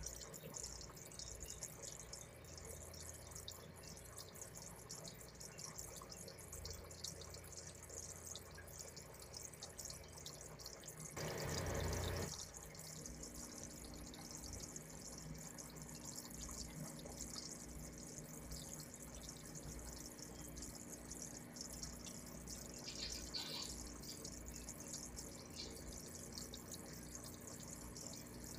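Aquarium water bubbling and dripping steadily, with the fizz of rising air bubbles. About 11 seconds in there is a brief, louder rush lasting about a second, and after it a faint low hum joins.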